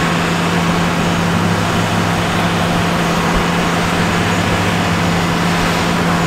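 Pickup truck engines running steadily under load, one truck towing the other on a strap through snow: a constant low drone at an unchanging pitch over a broad hiss.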